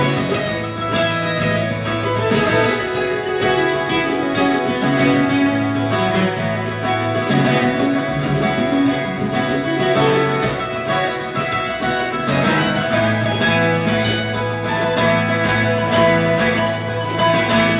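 Two acoustic guitars playing an instrumental passage together, with a steady strummed rhythm.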